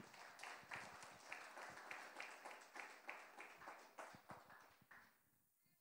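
A small congregation applauding: many irregular claps that fade out about five seconds in.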